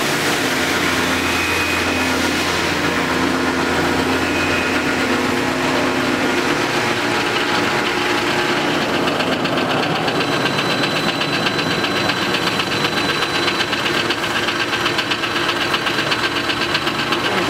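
CNC live-tool lathe hobbing a spline: the spinning hob cutting teeth into a metal shaft, a steady machine whine and hum. About halfway through, a fast, even rattle joins in.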